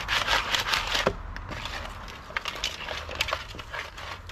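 Crab shells clattering and scraping against each other and a stainless steel bowl as a hand mixes them: a dense rattle in the first second, then scattered clicks.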